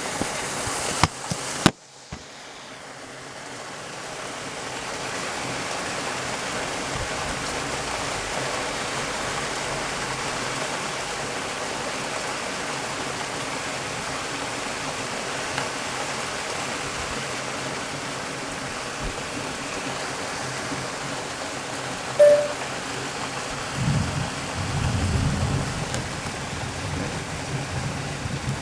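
Heavy rain pouring steadily, an even hiss that builds over the first few seconds after a couple of sharp clicks. About three-quarters of the way through there is a short tone, followed by a low rumble lasting a few seconds.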